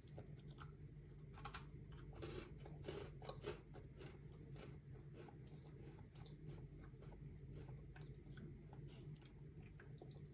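Crunchy chewing of a hazelnut cookie close to the microphone, a run of crisp crunches with the thickest cluster a second or two in, then lighter chewing.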